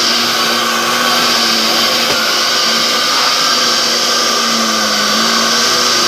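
Dyson DC07 upright vacuum cleaner running steadily, a motor hum under a high whine and airflow hiss. Near the end the pitch dips slightly for about half a second and recovers.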